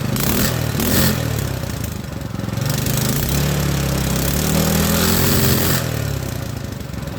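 Predator 212 single-cylinder four-stroke engine running after being revived; its revs rise about three seconds in and drop back near six seconds. It runs evenly and sounds great.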